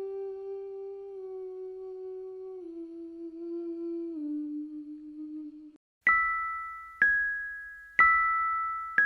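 Eerie humming of three long notes, each a step lower than the one before, followed about six seconds in by slow bell-like chime notes. The chimes are struck about once a second and each rings out and fades.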